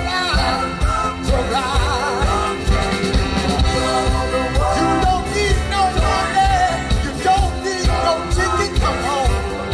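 Live band playing an upbeat soul song: a lead singer with wavering sustained notes over electric guitars, keyboard and a steady drum beat, amplified through a PA.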